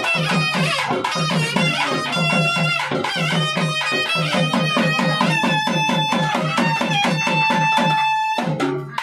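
Traditional South Indian temple festival music: a fast, steady drum beat under an ornamented melody that turns to long held notes. The music cuts off suddenly near the end.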